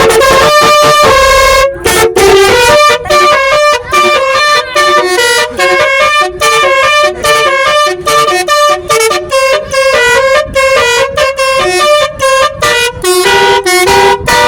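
Basuri musical vehicle horn playing loudly through its horn speaker: a held chord for about two seconds, then a fast melody of short, choppy notes stepping up and down in pitch, cutting off near the end.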